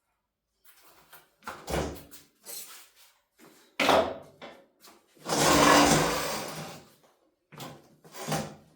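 A series of irregular knocks and scrapes from objects being handled, the longest and loudest one, a scraping rub over a second long, coming about halfway through.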